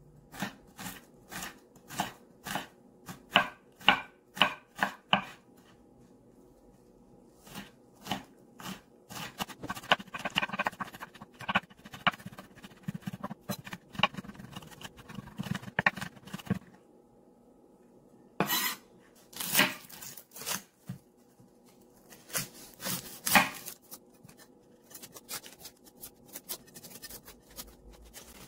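Chef's knife mincing garlic on a wooden cutting board: a run of sharp knife taps against the board, spaced at first, then quicker and denser in the middle, with a short pause before a few more scattered strikes.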